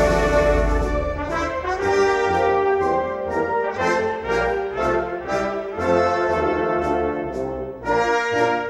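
Brass band playing Moros y Cristianos festival music: sustained brass chords changing every half second or so over a low drum pulse. A cymbal crash sounds right at the start.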